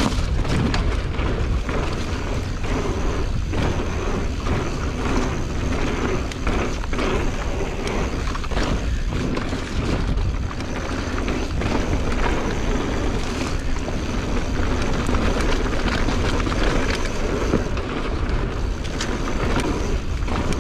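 Mountain bike being ridden along a dirt trail: steady wind rumble on the microphone, tyres on dirt, and frequent clacks and rattles from the bike over bumps.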